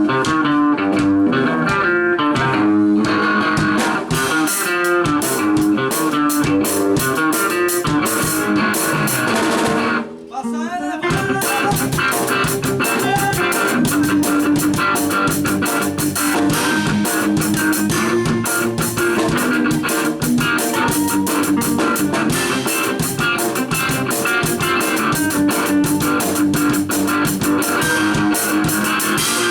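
Rock-style music with guitar, bass and a drum kit. It breaks off briefly with a falling sweep about ten seconds in, then carries on.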